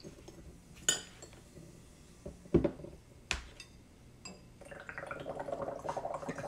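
A spoonful of baking soda tipped into a glass flask of vinegar, with a few glass clinks and knocks as the flask is stoppered. Then, about two-thirds of the way in, a steady rapid bubbling starts: carbon dioxide from the fizzing baking soda and vinegar reaction is escaping through a tube into a small glass of water.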